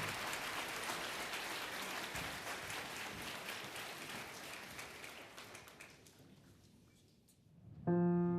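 Audience applause fading away after a song, dying out about seven seconds in. A piano then starts the introduction to the next carol near the end.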